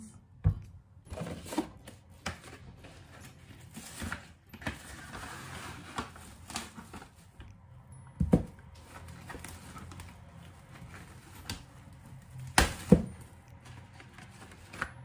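Cling film being unrolled from its box and wrapped around half an onion: crinkling, rustling plastic with a few sharp knocks on the countertop.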